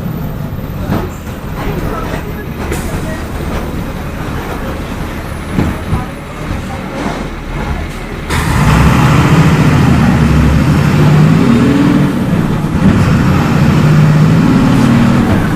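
MWM 6.12 TCAE six-cylinder turbodiesel of a Volksbus 17.210 EOD bus running quietly with a few clicks, then about halfway through it gets suddenly louder under acceleration, its pitch rising and falling.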